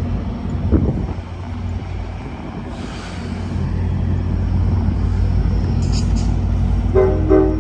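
Steady low rumble of a diesel passenger locomotive idling at the platform. Near the end comes a short pitched tone of about half a second.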